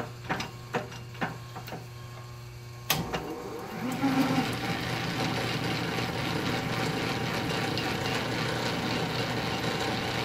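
Early-1950s Sheldon lathe's change-gear train, fitted with a new Boston replacement gear, starting up: a few light clicks, then about three seconds in a knock as the drive engages, and the gears spin up into a steady mechanical whir of meshing teeth.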